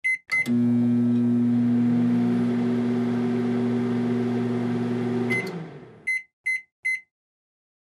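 Microwave oven: short keypad beeps as it starts, then a steady hum for about five seconds while it runs. It stops and winds down, followed by three short beeps signalling the end of the cycle.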